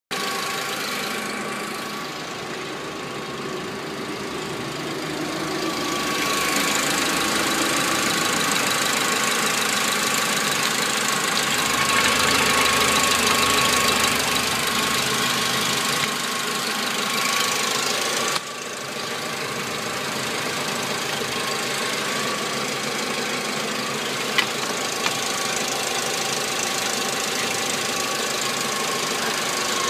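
Renault K4M 1.6-litre 16-valve petrol engine running steadily at idle, heard close up in the engine bay, with a steady whine above the engine sound.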